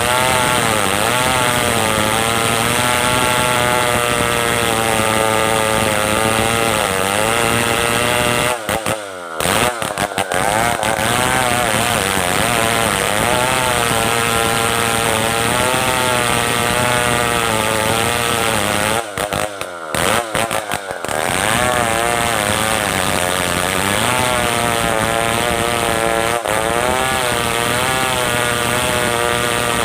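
Stihl 070 two-stroke chainsaw running under load while ripping a merbau log lengthwise, its engine pitch rising and falling as the bar bites into the wood. The sound breaks off briefly twice, about nine and twenty seconds in.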